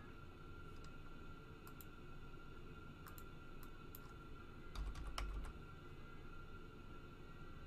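Computer keyboard being typed on: scattered soft key clicks, with a quick run of keystrokes and a low bump about five seconds in, over a faint steady high-pitched electrical whine.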